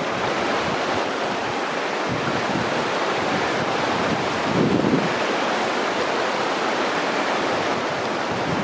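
Shallow river water running over a gravel and cobble bed, a steady rushing hiss. About halfway through, a brief low buffet of wind on the microphone.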